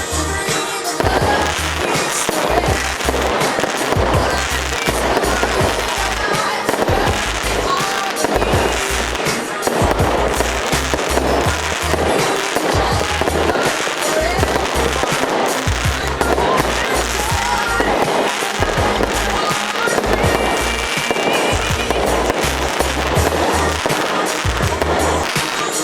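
Fireworks display going off without pause: a rapid, dense run of bangs and crackling bursts, with music playing underneath.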